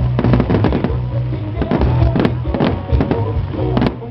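Fireworks cracking and banging in quick, irregular succession over loud music with a steady bass line.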